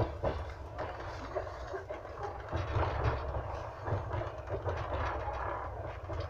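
Passenger train in motion heard from inside the carriage: a steady low rumble with irregular knocks and clicks from the wheels on the rails.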